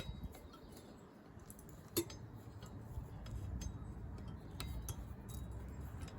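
Light metallic clinks and taps as a rear brake caliper with fresh pads is worked back over the brake disc, with one sharper clink about two seconds in.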